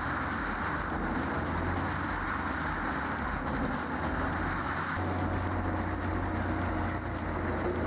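Heavy machinery running with a steady mechanical drone and a strong low hum. The sound shifts about five seconds in, when a faint steady whine appears.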